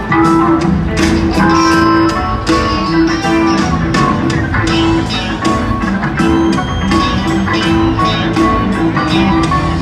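Live rock band playing an instrumental stretch of a song: guitar lines over keyboards and a steady beat.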